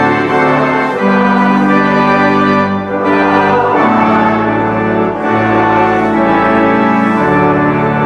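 Organ playing sustained chords that change every second or two: a postlude following the benediction.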